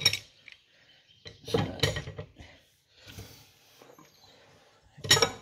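Sharp metal clanks and knocks in three short clusters, at the start, about a second and a half in and near the end, with faint scraping between them. They come from hand work on an old Lister three-cylinder diesel that was recently unseized.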